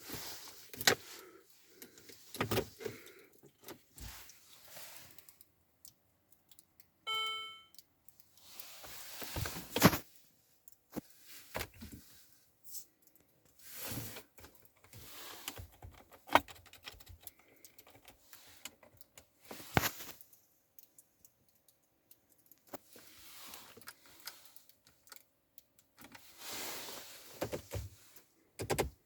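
Car keys jangling with scattered clicks of the key and switches in a Peugeot 607 that will not start, and one short electronic chime from the dashboard about seven seconds in. No engine runs or cranks.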